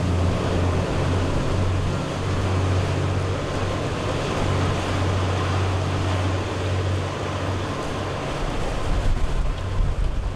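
Large ferry passing close: a steady low engine drone over the rushing hiss of its churning wake. The drone drops away about three-quarters of the way through, and the water noise surges louder near the end.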